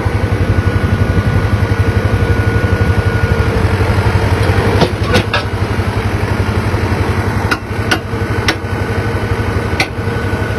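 Diesel tractor engine running steadily close by, a low, evenly pulsing throb. Several sharp clicks or knocks come through over it in the second half.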